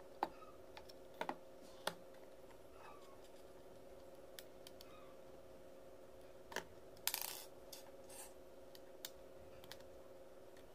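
Faint plastic clicks and taps of a digital multimeter's battery cover being pressed shut and handled, then a screwdriver set to the cover's retaining screw, with a short scraping rattle about seven seconds in. A low steady hum sits underneath.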